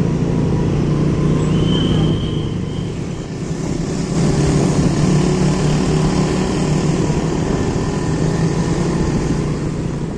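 Steady motor vehicle running, a low engine hum with road and traffic noise.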